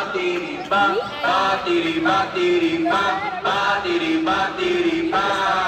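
Latin song with chanted male vocals over the music, sung in short held phrases, with a long falling note starting about five seconds in.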